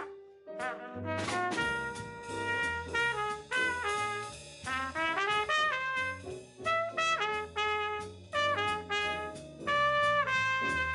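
Trumpet soloing over a jazz rhythm section of bass, piano and drums, a line of quick notes that starts after a brief gap near the start.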